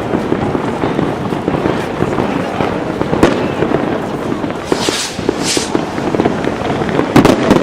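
A dense barrage of fireworks: continuous overlapping bangs and crackling, with two hissing whooshes about five seconds in and a cluster of louder bangs near the end.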